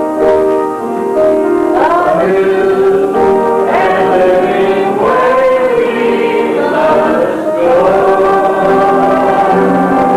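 Music: a choir sings a slow gospel song over held keyboard chords, with the voices coming in about two seconds in.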